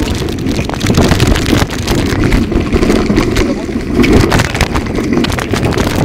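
Loud rumbling and rustling on a phone's microphone as it is carried along on foot: wind and handling noise with frequent small knocks, and perhaps muffled voices under it.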